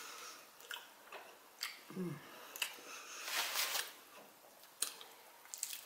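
Close-up eating sounds: scattered clicks and crackles of a crisp hard taco shell being handled and chewed, with a longer crunchy crackle around the middle and a brief hum about two seconds in.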